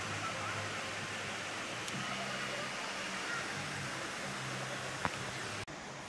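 A steady rushing noise with faint voices in the background, a short sharp click about five seconds in, and a sudden cut just before the end.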